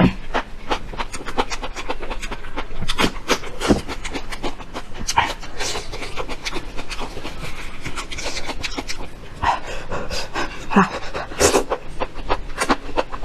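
Close-miked eating of enoki mushrooms: wet chewing, smacking and slurping, with breaths drawn in between mouthfuls.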